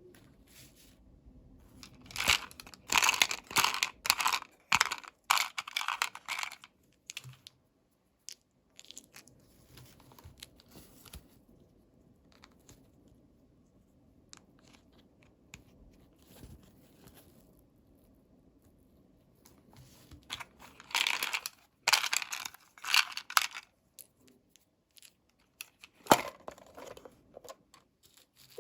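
Packaging being torn and crinkled open by hand, in two spells of rasping rips and a sharp snap near the end.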